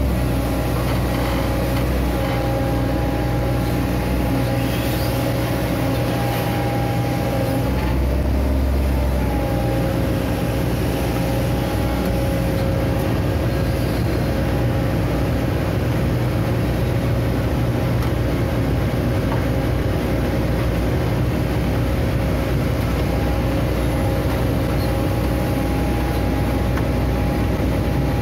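Amphibious Hitachi Zaxis 130 excavator working: the diesel engine runs steadily under load with a steady whine over a low rumble.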